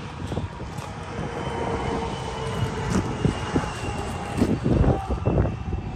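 Engine drone of something passing by, swelling over the first few seconds and holding, with a few low thumps near the end.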